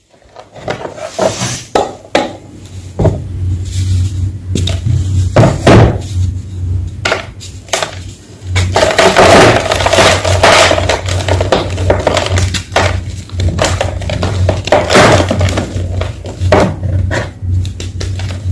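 Homemade gym chalk blocks being crushed and crumbled: a run of crisp snaps and crunches, with stretches of dense crackling, over a low steady hum.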